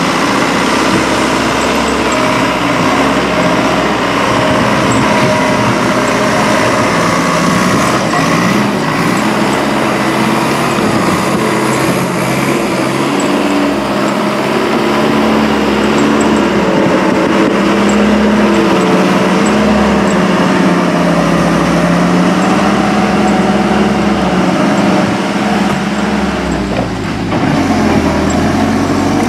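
Heavy vehicle engine running close by, its engine speed slowly rising and falling; near the end it eases off briefly, then picks up again.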